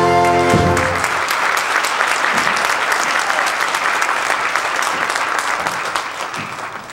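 The last held chord of the song cuts off under a second in, and an audience's applause takes over, loud at first and slowly fading.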